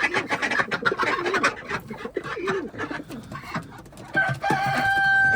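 Chickens clucking and birds chattering, then a rooster starts a long crow about four seconds in.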